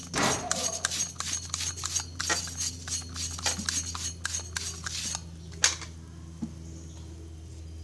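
Quick scratchy scrubbing and scraping strokes on an amplifier's circuit board as the corrosion is cleaned off with thinner. The strokes stop about five seconds in, after one sharp click, leaving a steady low hum.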